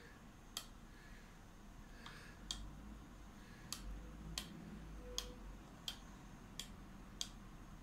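About eight short, sharp clicks, irregularly spaced and coming faster in the second half, as a screwdriver turns the adjustment dial of a modular timer relay to shorten its delay.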